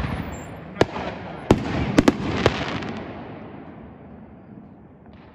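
Aerial fireworks going off: five sharp bangs in the first two and a half seconds, with crackling between them that dies away by about the fourth second.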